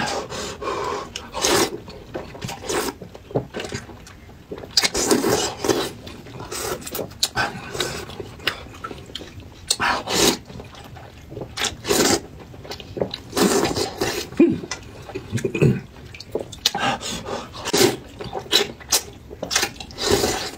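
Wide flat noodles in broth being slurped up from a bowl in repeated, irregular sucking bursts, with mouth noises between them.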